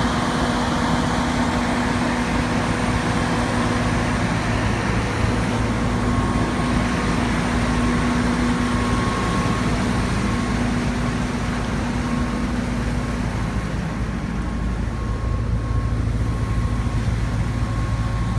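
Fire engine's engine and pump running steadily under heavy load, feeding five hose lines at the full capacity of the hydrant. A steady drone with a few held tones over it.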